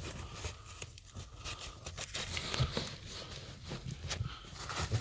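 Fabric seat cover rustling and scraping as it is tucked behind the seat's armrest and pulled through by hand, with irregular scratchy handling noises and a few sharper clicks.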